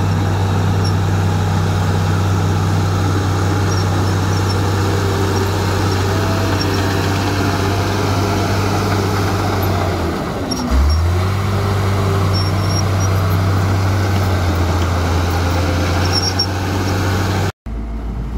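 Komatsu D53A crawler bulldozer's diesel engine running steadily while the dozer pushes soil, its low hum dipping briefly and picking back up about ten seconds in. Near the end the sound cuts off abruptly and a quieter engine takes over.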